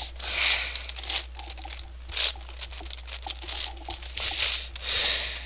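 Plastic layers of a Yuxin 11x11x11 speed cube being turned by hand: a run of quick clicks, clacks and scraping rattles as the layers are twisted, over a steady low hum.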